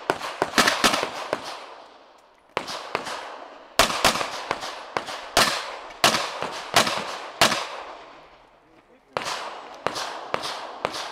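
Handgun fired in fast strings of shots with short pauses between strings, each shot trailing off in echo.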